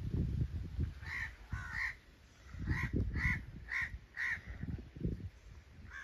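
Crows cawing, about six caws: two about a second in, then a run of four roughly half a second apart in the middle, over an uneven low rumble.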